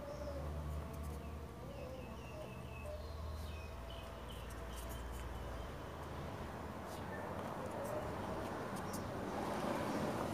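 Low background hum with a few short, faint high chirps and scattered light clicks of plastic automotive relays being handled and set down.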